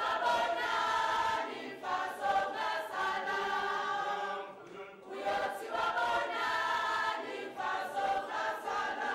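A group of people singing together in chorus, in phrases with short breaks between them.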